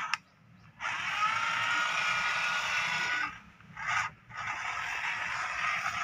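Small electric motor and plastic gearbox of a wired remote-control toy loader running with a grinding whine, in bursts as it is driven. It cuts out just after the start, runs again from about a second in, stops briefly after three seconds, gives a short burst about four seconds in, then runs on.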